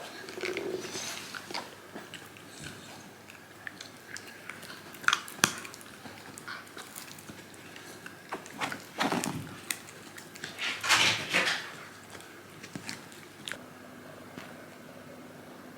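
A Shiba Inu moving about indoors: scattered small clicks and scuffles, with two louder bursts of scuffling about nine and eleven seconds in.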